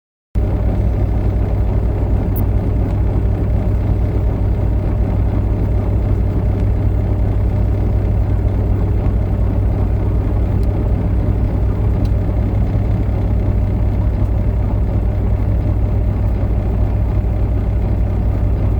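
Steady low rumble of a vehicle driving on the road, engine and road noise together, starting abruptly just after the beginning.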